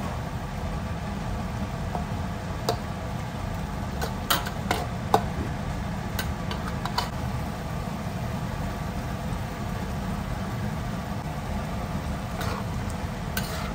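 Metal spatula scraping and clinking against a wok during stir-frying, with a scattering of short sharp knocks at irregular moments over a steady low hum.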